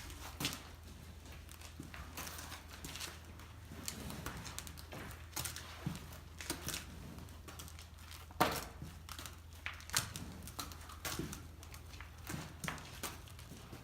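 Scattered light knocks, clicks and rustles over a steady low hum, with one sharper knock about eight seconds in.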